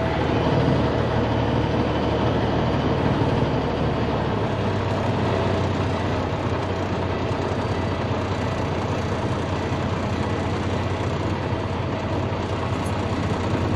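Heavy diesel engine running steadily, its low note changing about four seconds in.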